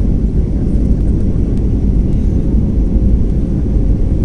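Steady low rumble of an airliner's engines and rushing air, heard inside the passenger cabin during the landing approach, with a faint steady hum above it.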